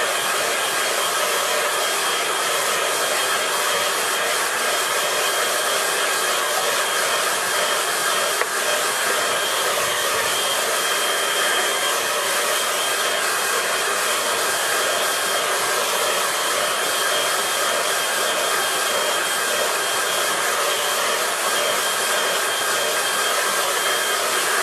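Handheld hair dryer running steadily, blowing over wet watercolour paint to dry it: an even rushing blow with a faint high whine through it.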